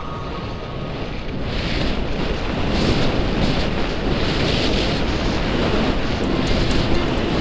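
Wind rushing over the microphone and skis hissing on packed snow during a downhill run, the noise rising and falling in waves.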